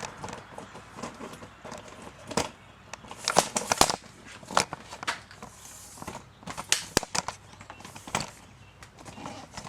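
Irregular sharp clicks and knocks of tools and plastic trim as a pickup's glove box is taken apart, with a quick cluster of knocks about three to four seconds in.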